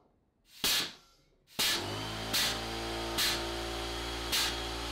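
Home-built compressed-air Nerf blaster firing foam balls: four short, sharp blasts of air, the first, about half a second in, the loudest. From about a second and a half in, a steady hum runs beneath the shots.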